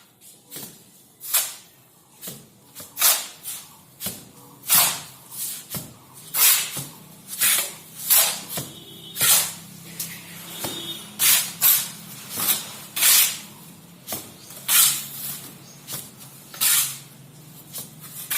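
Repeated short scraping or swishing strokes, about one a second, over a faint low steady hum.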